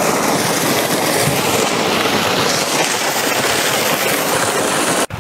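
Loud, steady rush of flowing water, which cuts off suddenly near the end.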